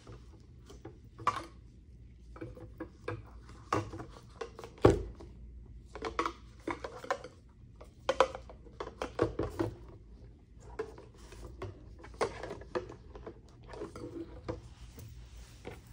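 Rummaging for supplies: irregular clicks, taps and rustles of small items being picked up and moved about, with one sharper knock about five seconds in.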